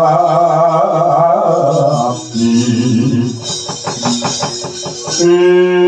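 Javanese gamelan accompanying a singer's long, wavering held notes. About two seconds in the held note stops, and a run of quick strikes, about four a second, takes over with lighter tones above it. Near the end the singing returns on another long wavering note.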